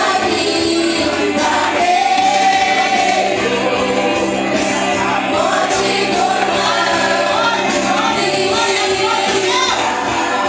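Gospel worship song with a group of voices singing together over instrumental accompaniment.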